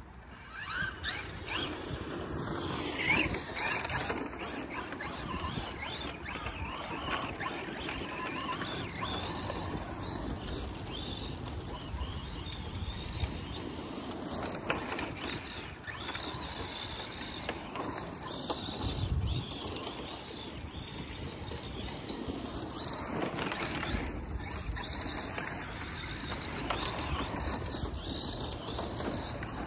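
ARRMA Mojave 4S RC truck running and sliding on loose dirt, its brushless electric motor whine rising and falling with the throttle over the hiss of tyres on dirt.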